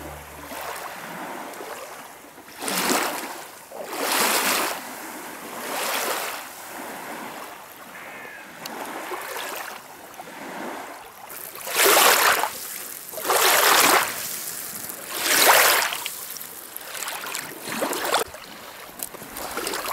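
Lake waves washing and splashing, a rushing noise that swells in uneven surges every second or two, loudest in the second half.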